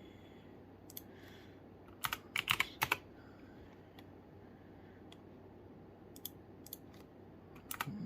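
Typing on a computer keyboard: a single keystroke about a second in, a quick run of keystrokes about two to three seconds in, and a few more scattered near the end.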